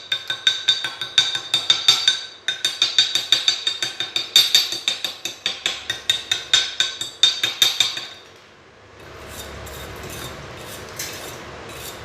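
Chipping hammer knocking slag off fresh stick-weld beads on steel plate: quick sharp metal strikes, about five a second, with the metal ringing after each. Near the end the strikes stop and quieter, even scraping strokes follow, as when the bead is brushed clean.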